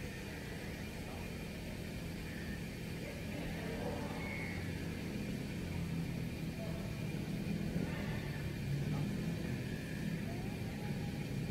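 Steady low background rumble, slightly louder in the second half, with no barks or clear impacts.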